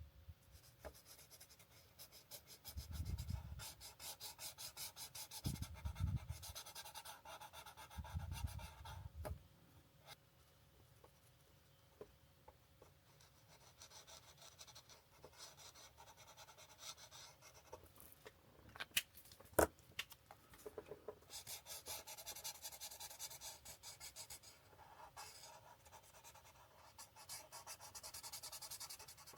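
Alcohol marker tips rubbing across paper in quick back-and-forth colouring strokes, in spells with short pauses. A few low thumps come in the first ten seconds, and a few sharp clicks about two-thirds of the way through.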